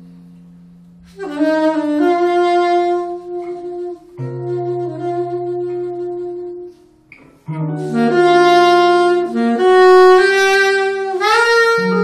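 Soprano saxophone playing phrases of long held notes, with a guitar chord fading away at the start. There are short pauses about four and seven seconds in, and the saxophone grows louder and brighter after the second pause.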